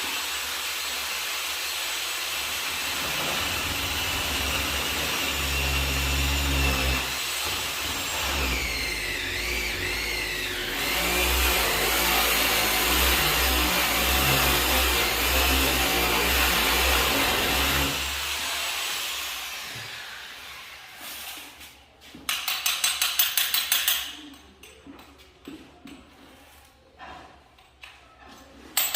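Handheld electric power tool running under load for about eighteen seconds, its pitch wavering in the middle, then winding down; a second short burst of rapid pulsing comes a few seconds later.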